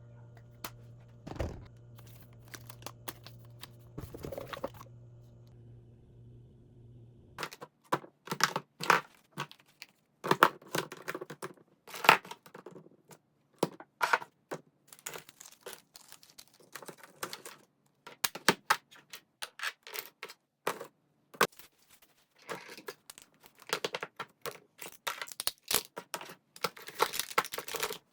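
Hands sorting through belongings: rustling, crinkling and tearing of wrappers or paper, with quick clicks and knocks of small objects. A steady low hum runs under the first seven seconds or so, then stops.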